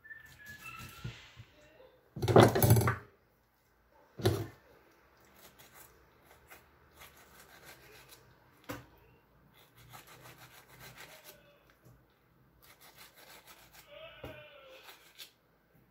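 A knife slicing and scraping the rind off a pineapple, in short rasping strokes against the fruit and a plastic cutting board. The loudest cut comes about two seconds in, another just after four seconds, then lighter, quicker strokes.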